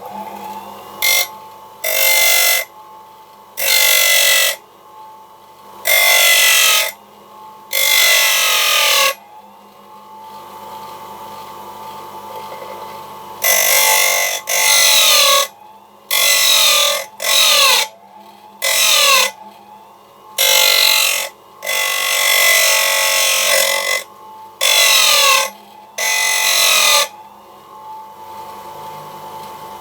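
Mac Allister MBGP150B bench grinder running with a steady whine, while a steel chisel is pressed against the spinning grinding wheel again and again. Each contact gives a loud rasping burst of about a second, around fourteen in all, with a longer pause near the middle.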